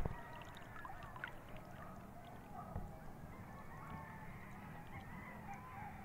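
Faint, continuous chatter of a distant flock of birds, many short overlapping calls, over a low steady hum.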